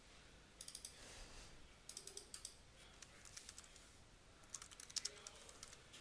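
Faint computer keyboard typing: about four short runs of keystrokes as a short phrase is typed.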